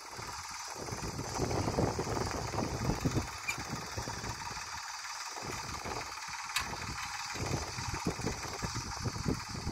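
Farm tractor's diesel engine running steadily while pulling a plough through soil, with irregular low rumbling that rises and falls.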